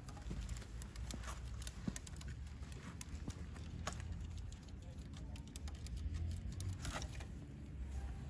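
Scattered light clicks and taps over a steady low outdoor rumble, with one sharper tick about seven seconds in.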